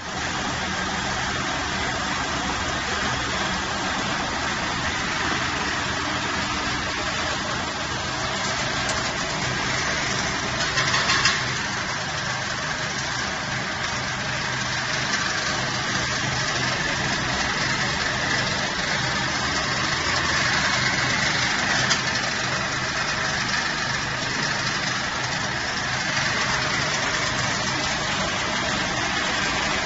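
TONY TYJ760 wood pellet mill running steadily, pressing sawdust into pellets: a continuous machine noise with a low hum, and a brief louder burst about eleven seconds in.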